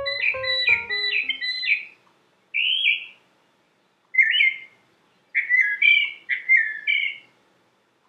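Northern mockingbird singing: short phrases, each repeated several times, come in groups with brief pauses between them. The last notes of a piano fade out in about the first second.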